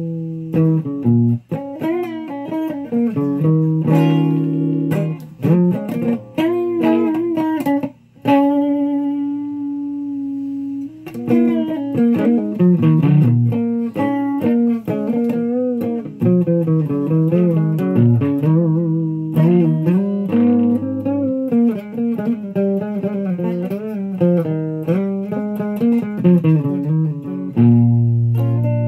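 Electric guitar played through an amplifier: a continuous run of melodic single-note phrases, with one note held for about three seconds around eight seconds in.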